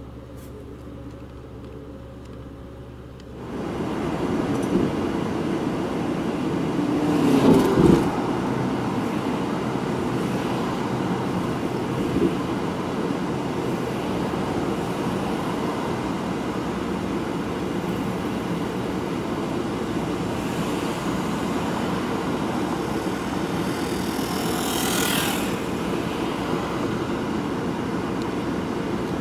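A car's engine humming steadily, heard from inside the cabin. It gives way to louder road and traffic noise from the moving car, with other vehicles passing by, the loudest about eight seconds in and a brief swish near the end.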